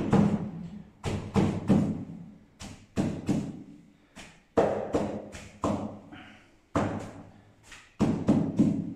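Hammer blows tapping wooden door-casing trim into its frame, struck in quick groups of two or three about every second.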